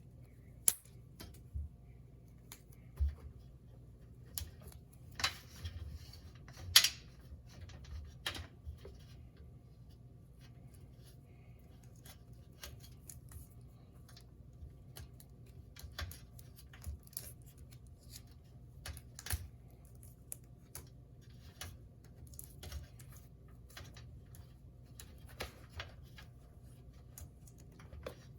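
Scattered small clicks, taps and light rattles of hand tools and small parts being handled during a vacuum motor repair, with the sharpest snaps about a second in and near seven seconds in.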